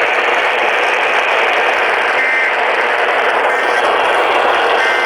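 Steady hiss of radio static from a receiver carrying weather alert broadcasts, with no voice on the channel.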